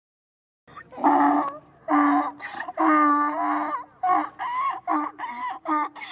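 Chicken calling: three drawn-out calls, then a quick run of shorter calls, about three a second.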